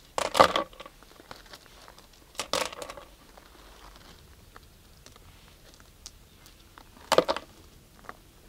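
Crushed-stone gravel crunching and rattling as gloved hands sweep and spread it, in three short bursts with small clicks of stones in between.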